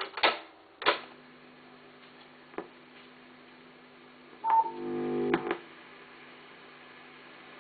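ZK 120 reel-to-reel tape recorder switched on by its function knob: two sharp clunks, then the transport motor humming steadily. About four and a half seconds in there is a short, louder burst of noise with a brief tone and a click, as the tape starts to play.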